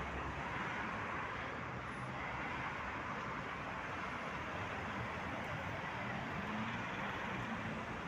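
Steady road traffic: cars running past on a busy city street, with a faint engine hum rising about two-thirds of the way through.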